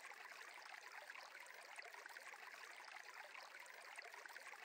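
Near silence: a faint, steady stream ambience, a soft even water hiss.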